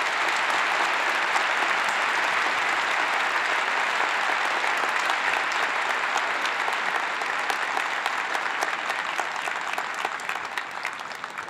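A large audience applauding: dense, steady clapping that tapers off near the end.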